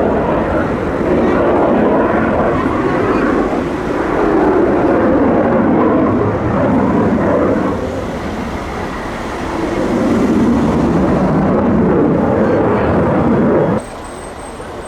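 Jet noise from a Saab JAS-39C Gripen's Volvo RM12 turbofan as the fighter flies its display. The rumble swells and eases several times, then cuts off abruptly near the end to a much quieter background.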